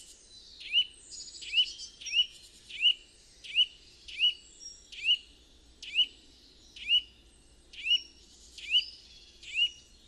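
Eurasian nuthatch singing: a steady series of short, rising whistled notes, about one every three-quarters of a second.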